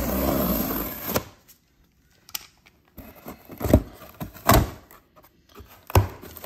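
A blade drawn along a cardboard shipping box makes a steady scraping hiss that stops about a second in. After a short pause the box flaps are pulled open, with several sharp cardboard knocks and rustles.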